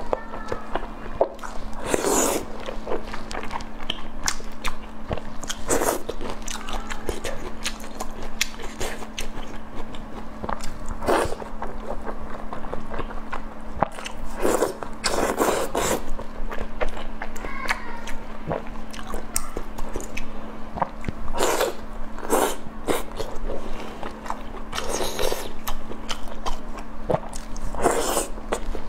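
Close-miked eating of sauce-coated food: wet biting and chewing with frequent irregular smacks. A steady low hum runs underneath.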